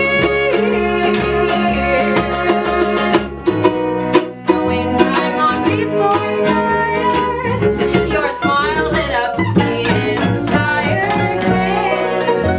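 Acoustic folk band playing: strummed ukuleles, an upright double bass and a fiddle, with a woman singing the melody over a steady strum.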